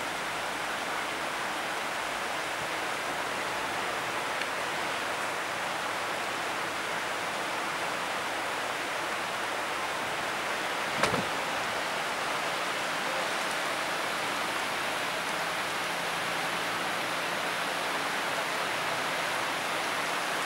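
Steady hiss of a heavy downpour of rain mixed with hail. One sharp tap about halfway through.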